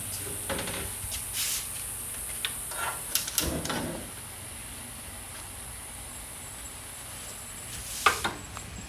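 Kitchen handling sounds at the stove as a pot is set up: scattered knocks and clatters of cookware, the heaviest about three seconds in and again near the end, over a steady high hiss.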